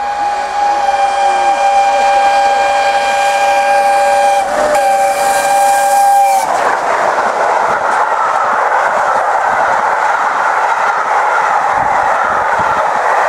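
Steam locomotive whistle of LNER Peppercorn A1 60163 Tornado, held as a long steady multi-note blast with a brief break about four and a half seconds in. It cuts off after about six seconds, and the train then rushes past loudly with a steady roar of wheels and carriages.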